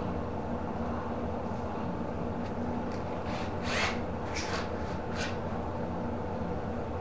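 A steady low hum, with a few short scuffing and rustling noises about halfway through as tools and feet are moved around on a tiled floor.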